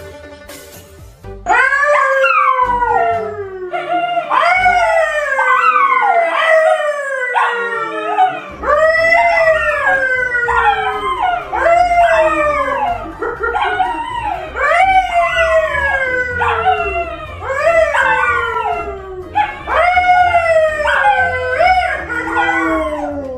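A man and a brown poodle howling together: a long run of falling howls, each about a second long, starting about a second and a half in.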